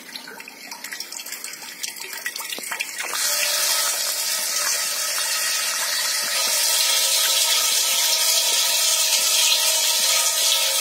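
Water running from a tap, suddenly turning to a strong gush about three seconds in, with a steady hum underneath.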